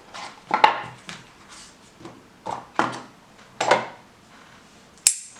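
A folding knife being handled: three short knocks or clatters on a hard surface, then one sharp click near the end.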